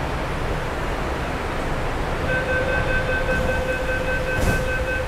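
Metro car's door-closing warning: a rapid run of high beeps starts about two seconds in over the steady hum of the car, while the sliding doors shut. A thump comes near the end.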